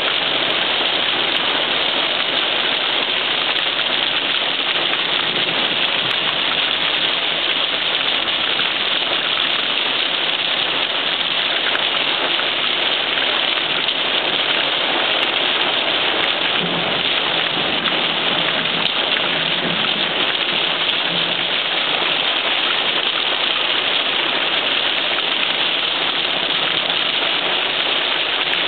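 Heavy rain beating on a car's windshield and roof, heard from inside the cabin as a steady, even hiss.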